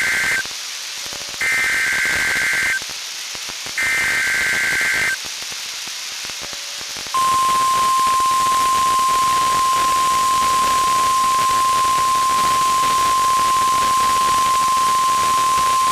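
NOAA Weather Radio Required Weekly Test tones over hissing radio static. First the end of one SAME digital header burst and two more warbling data bursts, each a little over a second long. Then, after a pause, the steady 1050 Hz warning alarm tone begins about seven seconds in and holds for about nine seconds.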